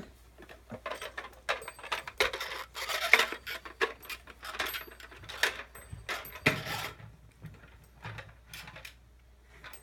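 Plastic pull-along toy telephone clattering and clicking as it is dragged and bumped along the floor, in uneven runs of rattling with light clinking, loudest about three seconds in and again past six seconds.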